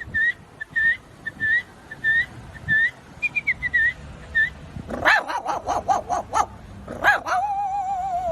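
A person imitating animals with the voice: a run of short whistled chirps, then a quick series of dog-like yaps and a long drawn-out whine near the end.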